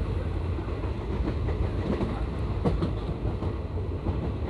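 A moving train carriage heard from inside: a steady low rumble of the running gear, with scattered clicks of the wheels on the rails, the sharpest a little before halfway.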